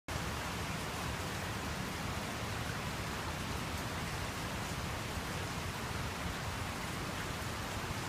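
Very heavy typhoon rain falling steadily, a dense, even hiss.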